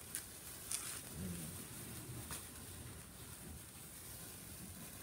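Handheld sparklers burning with a faint steady fizz and a few sharp crackles, two near the start and one a little after two seconds in.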